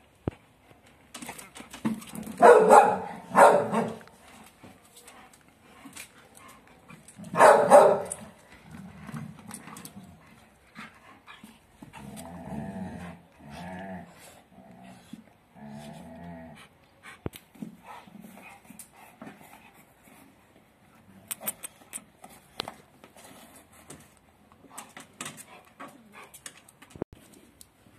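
A German shepherd and a Rottweiler: three loud barks, two about two and a half to three and a half seconds in and one near eight seconds, then low growling in several short stretches. Scattered light clicks follow.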